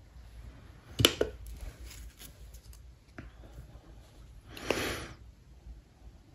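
Small handling noises from a plastic nail tip and a gel bottle on a paper-towel-covered table. A sharp tap about a second in is the loudest sound, followed by a few lighter clicks and then a brief rustling scrape near five seconds.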